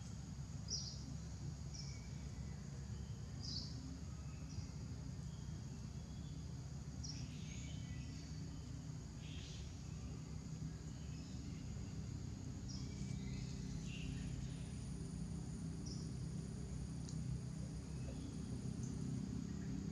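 Outdoor ambience: a steady low rumble with scattered short, high chirps, and a thin, steady high tone from about two-thirds of the way in until near the end.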